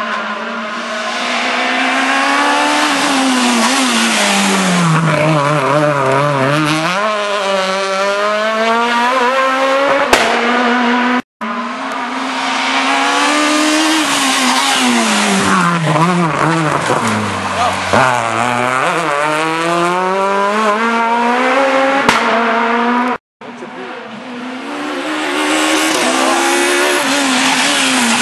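Rally cars passing at full speed on a tarmac stage, one after another. Each engine revs up and drops back through quick gear changes as the car brakes and accelerates past. The sound cuts out abruptly twice, separating three passes.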